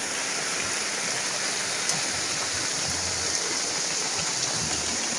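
Heavy rain falling steadily, a constant even hiss.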